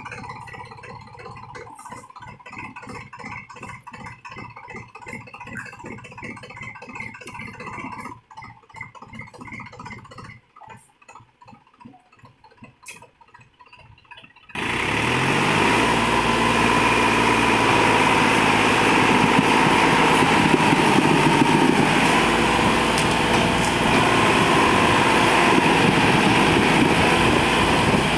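New Holland 4710 4WD tractor's three-cylinder diesel engine chugging at low revs with a loaded sand trolley hitched. About halfway through it jumps suddenly to high revs, the pitch climbing, and runs loud and hard as it pulls the loaded trolley up out of the sand.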